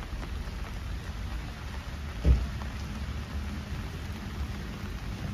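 Steady rain falling on floodwater, a constant hiss over a low rumble, with one dull thump about two seconds in.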